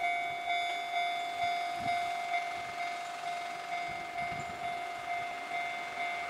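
Railway level-crossing warning bell ringing in a steady pattern of about two strokes a second, each stroke fading before the next: the signal that a train is approaching.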